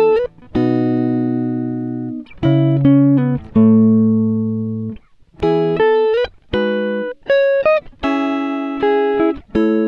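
Instrumental background music: plucked-string chords, each struck and left to ring and fade, a new one every half second to two seconds.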